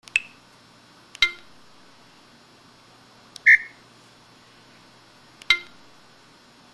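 Samsung SPH-X7800 mobile phone playing its built-in sound effects through its speaker: four short electronic tones a second or two apart. The second and fourth are the same bright, ringing chime, and the third is a short beep.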